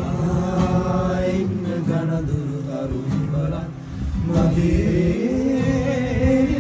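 A group of men singing a song together in Sinhala, with long drawn-out notes in the second half.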